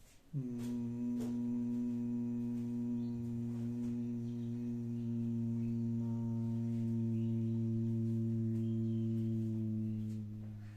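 A person humming one low, steady 'mmm' on a single exhalation, the humming-bee breath of bhramari pranayama. It starts about half a second in, is held for about ten seconds and fades near the end.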